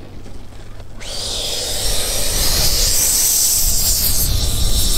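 90 mm WeMoTec Midi Evo electric ducted fan spooling up about a second in: a high whine with a rushing hiss that climbs in pitch and loudness, then holds steady as the model jet taxis on grass.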